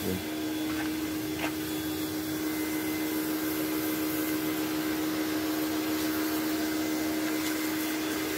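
Steady drone of a running motor, holding one constant pitch.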